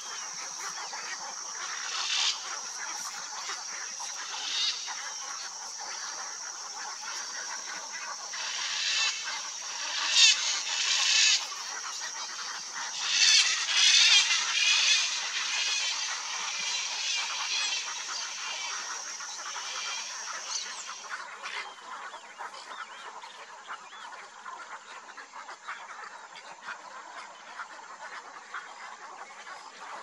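Macaws giving harsh squawking calls in scattered bouts, loudest from about 9 to 15 seconds in, over a steady high-pitched drone that stops about 21 seconds in.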